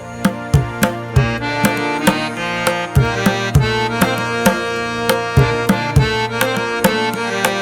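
Background music with a steady drum beat, about three strikes a second, under a melody of held notes.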